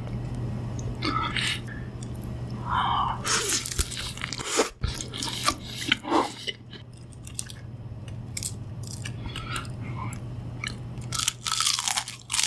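Close-miked biting and chewing of crunchy food: crisp crackling crunches come at irregular intervals, thickest in the middle and again near the end, over a steady low hum.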